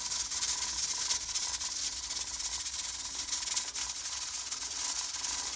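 Stovetop pressure cooker at cooking pressure: its 15-pound weight rattling on the vent stem with a steady hiss of escaping steam. The rattle is the sign that the cooker has come up to pressure and cooking time has begun.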